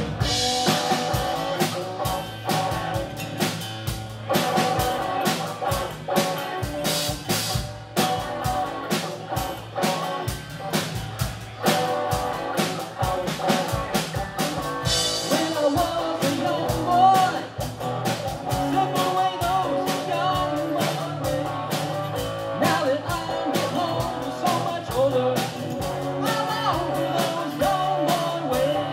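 Live rock band playing: a drum kit keeping a steady beat under electric and acoustic guitars, with a lead guitar line bending in pitch in the second half.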